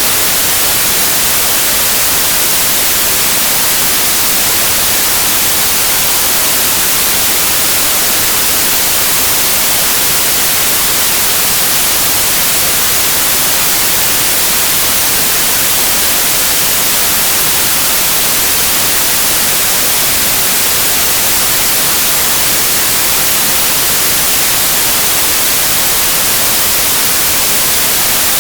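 Steady white noise: a loud, even hiss that does not change.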